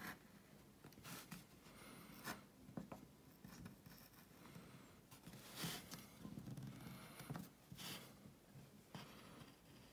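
Faint scraping cuts of a hand-pushed woodcarving gouge slicing into a wooden board, cutting the outline around a carved design: about a dozen short, irregular strokes.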